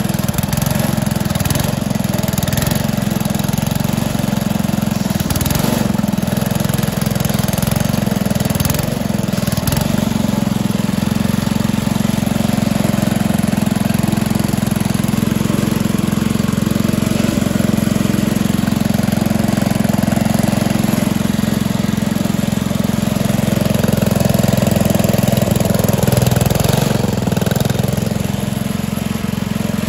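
Engine of a Struck compact crawler loader running steadily, a little louder for a couple of seconds near the end.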